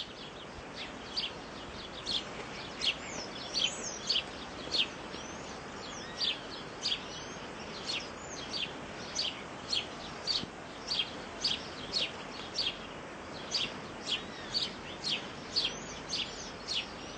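A bird calling over and over: short, high chirps that sweep downward, about one to two a second, over a steady background hiss.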